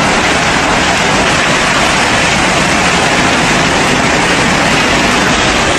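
Heavy rain and strong wind in a violent storm: a loud, steady rush of noise with no letup.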